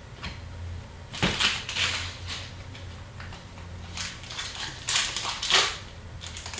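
Hockey card packs and cards being handled: crinkling and rustling of the pack wrappers and cards, in two clusters of crackly bursts.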